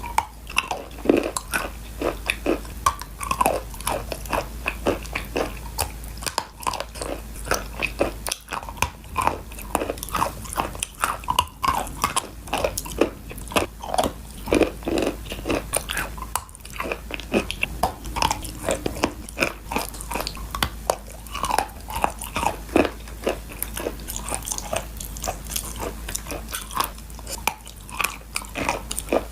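Close-up crunching and chewing of pieces of baked clay pot: repeated hard bites with dense, gritty crackling, several crunches a second, and no pause.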